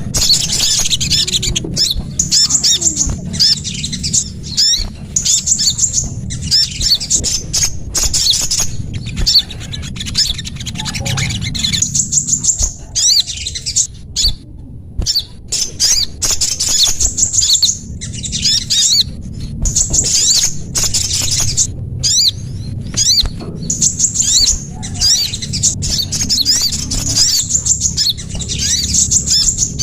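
Small songbirds' high-pitched chirping and twittering calls, repeated in quick bursts with short breaks between them, as played on a bird-lure (pikat) recording, over a steady low hum.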